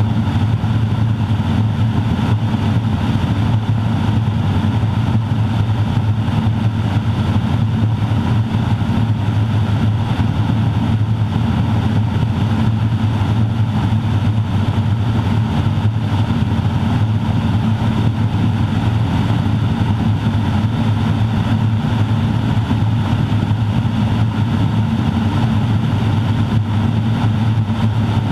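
Grumman Ag Cat's Garrett TPE331-6 turboprop engine and propeller running steadily in flight, heard from inside the open-sided cockpit as a loud, heavy low drone. The drone carries the uncomfortable resonance this airplane produces.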